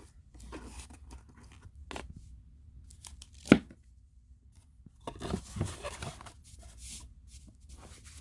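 Packaging being handled: short rustles and crinkles of plastic and cardboard, with one sharp click about three and a half seconds in and a longer spell of rustling a little later.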